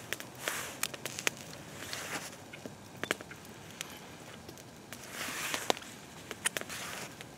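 Wood campfire crackling with irregular sharp pops, with a few longer rustling noises in between.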